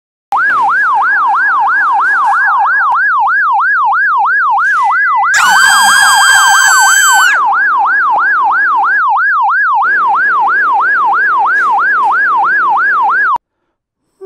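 Electronic alarm siren sound effect played through a small speaker driven by an LM386 amplifier, a fast rising-and-falling wail of about three sweeps a second that begins abruptly and cuts off suddenly near the end. About halfway through, a steady, higher, buzzy tone sounds over it for about two seconds.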